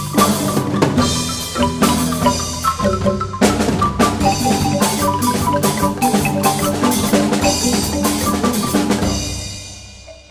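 Background music with a drum beat and pitched mallet-percussion notes, fading out near the end.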